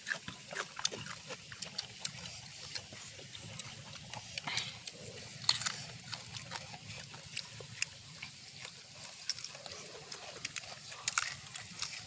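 Wet squishing and smacking of food, with many short sharp clicks, as bare hands mix a chili paste in a metal mortar and food is chewed.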